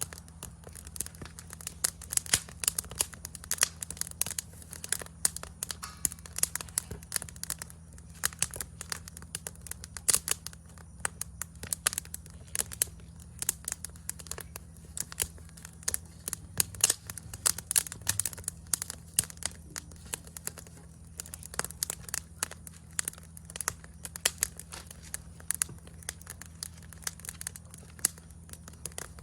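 Wood campfire crackling, with dense, irregular sharp pops and snaps throughout, over a steady low hum.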